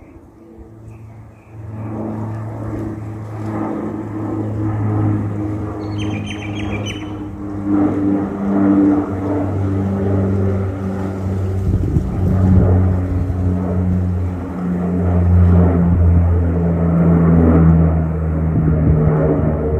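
Saab 340B twin-turboprop airliner climbing out overhead after takeoff: its propellers and engines drone with steady low tones, coming in about a second and a half in and growing louder toward the end.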